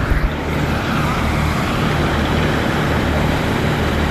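Fire hose spraying water with a steady rushing hiss, over the steady low hum of an engine. A few soft knocks come right at the start.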